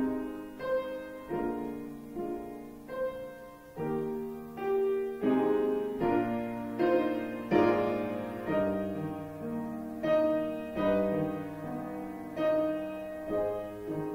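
Solo piano playing a slow, quiet piece in chords, each chord struck and left to ring and fade before the next, about one a second.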